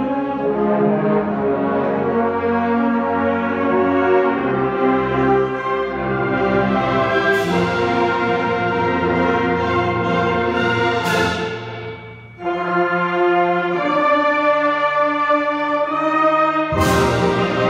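Concert band playing, with brass-led sustained chords. Bright crash accents come about seven and eleven seconds in, the volume drops briefly around twelve seconds, and the full band comes back in loudly near the end.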